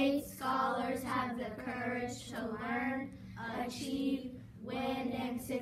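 Children singing a song together, phrase after phrase with short breaks between.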